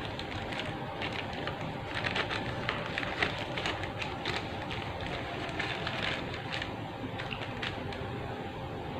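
Irregular small clicks and crackles, most of them in the middle, over a steady background hum.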